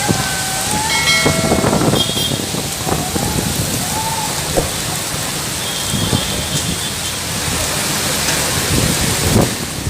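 Heavy rain pouring down in a steady, loud hiss. A few brief higher-pitched calls or tones sound faintly over it, about a second in, around three to four seconds in, and again around six seconds.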